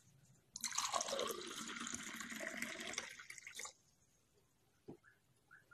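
An orange drink being poured into a glass tumbler: a splashing pour of about three seconds that stops abruptly. A single soft knock follows about a second later.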